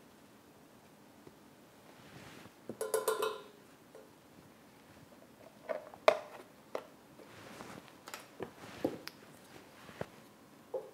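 Light kitchen handling sounds: a cream carton and a wrapper being handled beside a metal saucepan, with a few sharp clicks and knocks from about six seconds on. About three seconds in there is a brief squeaky tone.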